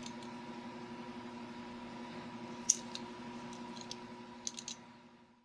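A few sharp plastic clicks from a Beyblade Burst top being handled in the fingers: one loudest click about halfway through and a quick run of three near the end, over a steady low hum. The sound fades out at the end.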